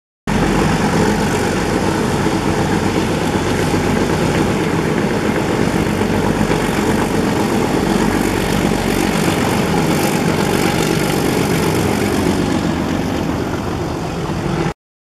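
Diesel locomotive hauling a passenger train past, its engine running with the coaches rolling by. The sound starts suddenly and cuts off abruptly near the end.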